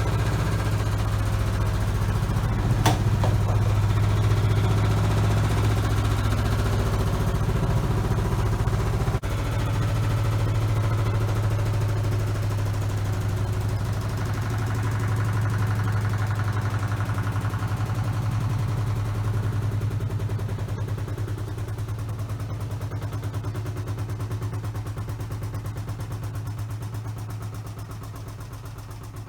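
Failing washing machine running with a loud, steady low hum and a fine rapid pulsing, with a single sharp tick about three seconds in; the hum slowly fades over the last third as the machine winds down. The owner takes the machine to be close to breaking.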